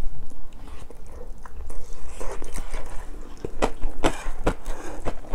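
Close-miked chewing and wet mouth clicks from eating cheese fried rice, with a wooden spoon scraping and knocking in a stone pot, loudest around four seconds in.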